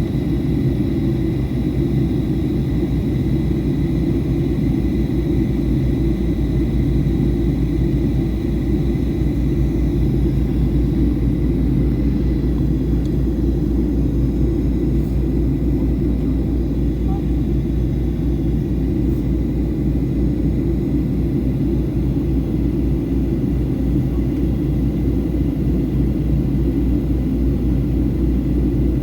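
Boeing 737-800 cabin noise in descent: a steady, loud low rumble of airflow and engines, with a faint high whine that fades about twelve seconds in.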